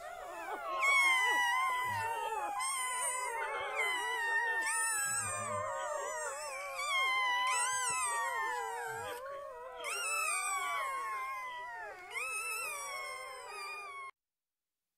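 A litter of newborn puppies, eyes not yet open, crying and whining together in high, overlapping, wavering squeals, almost without a pause; the crying cuts off suddenly near the end.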